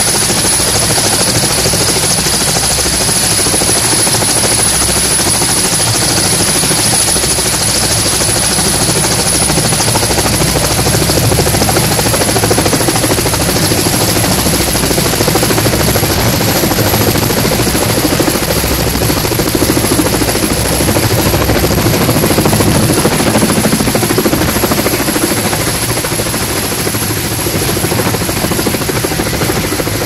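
Helicopter running on a ship's flight deck: a steady turbine whine over the rotor noise. It lifts off near the end, and the sound grows quieter as it moves away.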